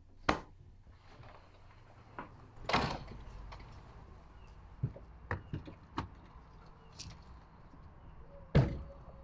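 Car doors being opened and shut: short latch and handle clicks and knocks, with the loudest thud, a door closing, near the end.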